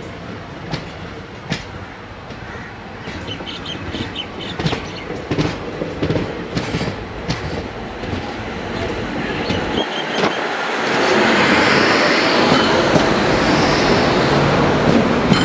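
Passenger train coaches rolling past close by, the wheels clicking over rail joints in an uneven clickety-clack. The noise swells into a louder, steady rushing about two-thirds of the way through.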